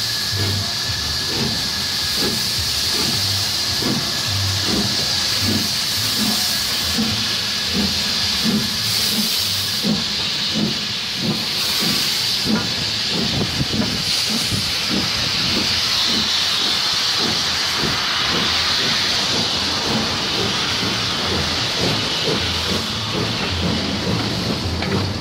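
LMS Stanier Black Five 4-6-0 steam locomotive No. 5428 pulling away with its train, cylinder drain cocks open: a loud, steady hiss of steam over regular exhaust beats.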